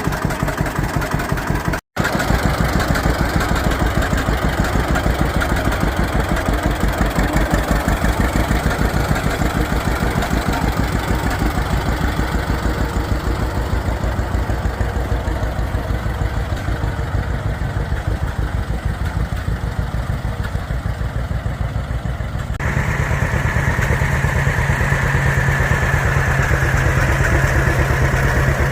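1948 John Deere Model A tractor's two-cylinder engine running with its slow, even putt-putt firing beat. After a cut about two-thirds of the way through it runs louder, with a steady whine added.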